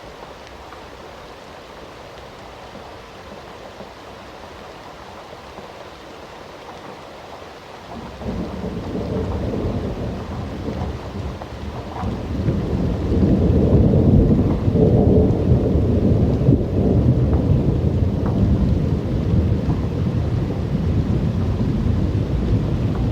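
Steady rain falling, then about a third of the way in a long, deep roll of thunder sets in and swells louder, rumbling on over the rain.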